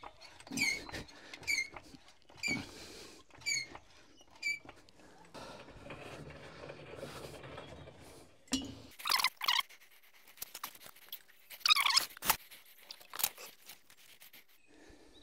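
Hydraulic jack being pumped to lift the car, a short squeak with a dull knock on each stroke, about one stroke a second. After a pause it gives a few louder squeaks and a click.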